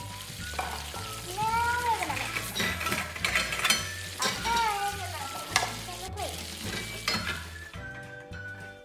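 Electronic sizzling and frying sound from a toy kitchen stove's lit burner, over background music with a repeating bass line.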